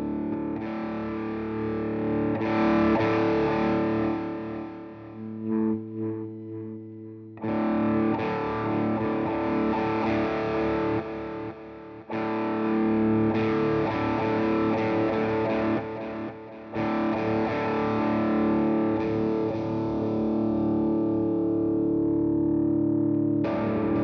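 Electric guitar played through a Marshall Jackhammer JH-1 distortion pedal: heavily distorted chords struck and left to ring, a new chord every few seconds, one dying away about five seconds in before the next is struck.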